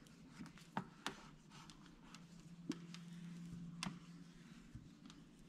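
Quiet, scattered clicks and taps from a squeegee and hands working tint film onto a plastic tail light lens, with about four sharp ticks standing out.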